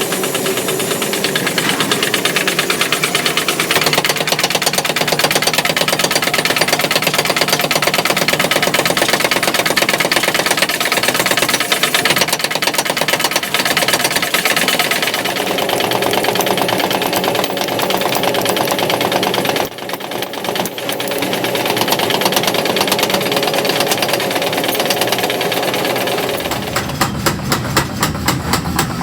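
Workshop machinery running with rapid, continuous mechanical knocking. Near the end the knocks become slower and more distinct.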